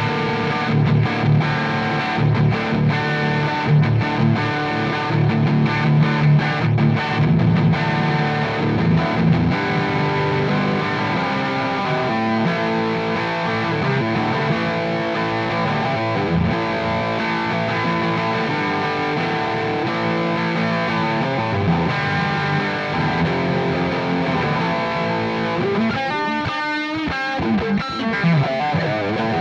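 Fender Telecaster electric guitar with Texas Special pickups, played through an overdriven amp-simulator tone with delay, notes ringing out in a melodic line. Near the end several notes slide or bend in pitch.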